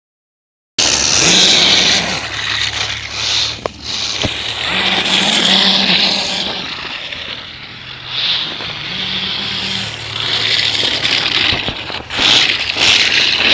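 Radio-controlled short-course truck converted to a snowmobile, driven in repeated bursts of throttle, its paddle tires churning and throwing snow with a hissing scrape that swells and fades every second or two.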